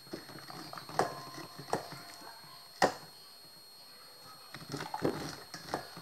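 Knife cutting corn kernels off the cob into a stainless steel bowl: sharp knocks against the bowl about one, two and three seconds in, the third the loudest, the first leaving a brief metallic ring. Softer scraping and tapping follows near the end.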